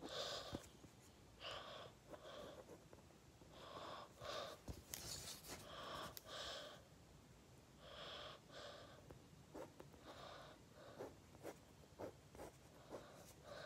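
A mechanical pencil sketching on paper: strokes scratching in short runs every second or two, then quicker short ticks of the point near the end. The sound is faint.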